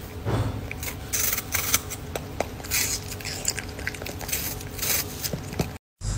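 A dachshund biting and chewing food from a hand: a string of short, crisp crunches at uneven intervals, cut off abruptly near the end.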